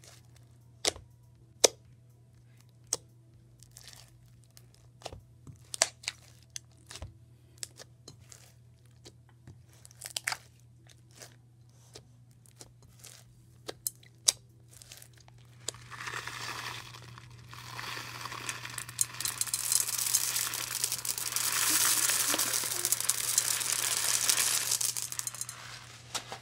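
Clear-glue slime squished and pressed by hand, giving scattered sharp clicks and pops. About sixteen seconds in, a steady, louder rattling hiss lasts some ten seconds as clear plastic fishbowl beads pour onto the slime.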